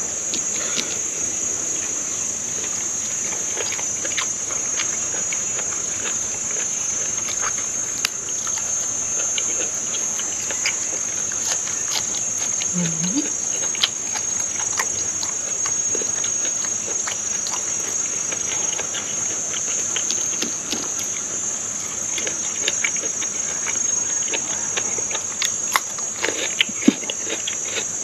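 Insects trilling in a steady, high-pitched drone, with scattered soft clicks and smacks of a person chewing food close to the microphone.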